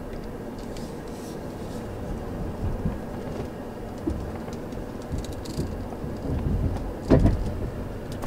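Minivan rolling slowly in reverse down a gravel boat launch with a boat trailer behind it, heard from inside the cab: a steady low rumble of tyres on gravel with irregular knocks, and a sharp knock about seven seconds in.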